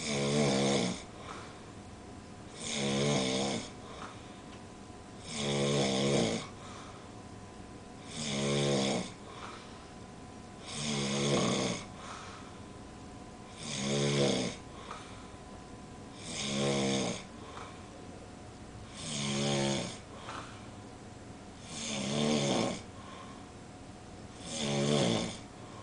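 A man snoring in his sleep: about ten snores at an even pace, one every two and a half to three seconds, each lasting about a second.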